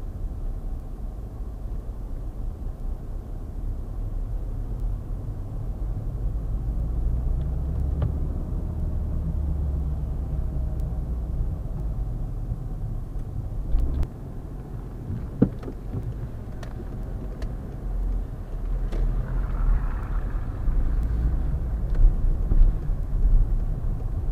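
Car driving on wet town streets, heard from inside the cabin: a steady low rumble of engine and tyre noise, with a few faint clicks.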